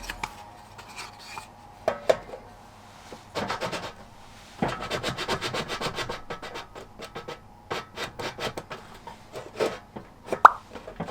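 A run of light clicks, taps and rubbing of small hard objects being handled, dense for a few seconds in the middle, with a short ringing note near the end.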